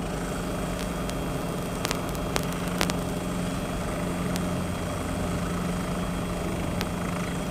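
Cabri G2 helicopter's engine and rotors running steadily, heard from inside the cockpit as it descends from a hover to land. A few faint clicks sound over the drone.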